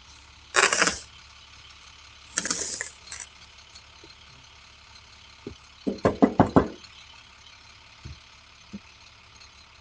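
Objects being handled: two brief scraping or rustling bursts, then a quick rattle of about six knocks, followed by a few single taps.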